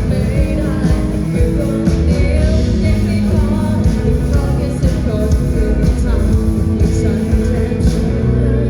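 A live band playing loud rock music, with singing.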